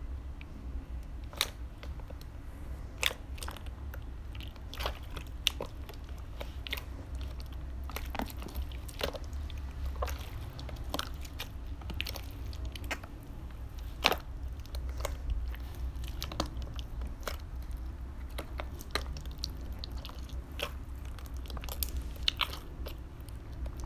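Hands squeezing and kneading a thick, crumbly slime, making irregular sharp crackles and pops as air pockets burst, over a steady low hum.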